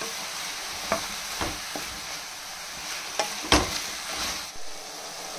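Milky mushroom pieces sizzling in hot oil in a metal kadai on medium flame, with a spatula stirring and clicking against the pan several times; the loudest click comes about three and a half seconds in.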